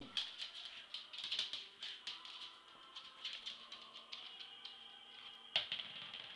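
A small spiky rubber toy ball rattling in quick, irregular bursts as a pet bats and chases it across a hard floor, with one sharp, loud rattle near the end.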